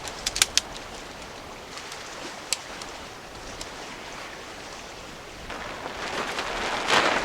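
Tent gear being handled: a few sharp clicks early on and another a couple of seconds later, over a low steady hiss, then a swell of rustling noise that builds near the end.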